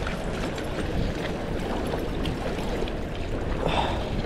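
Steady rushing of water in a dam's tailwater, with a few faint clicks and rustles.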